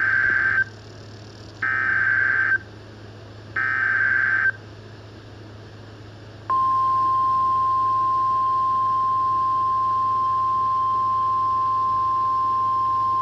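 Emergency Alert System SAME header: three loud bursts of warbling digital data, each about a second long and two seconds apart. About six and a half seconds in, the steady single-pitch NOAA Weather Radio 1050 Hz attention tone starts and holds, announcing a National Weather Service warning.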